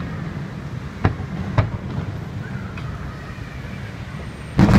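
Distant fireworks shells bursting: two sharp bangs about a second in, a fainter one midway, then a louder burst of bangs near the end, over a steady background hum.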